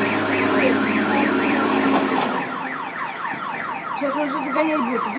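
An electronic siren wailing up and down about three to four times a second, then switching about two seconds in to faster, falling sweeps.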